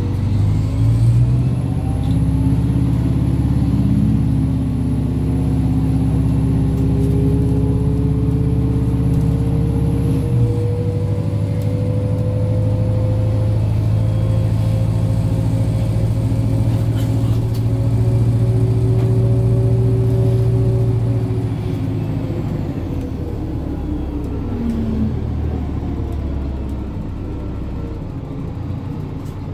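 New Flyer D60LF articulated diesel bus heard from inside the passenger cabin while under way. Its engine drone rises in pitch over the first ten seconds, changes suddenly about ten seconds in, holds steady, then falls in pitch and quietens near the end.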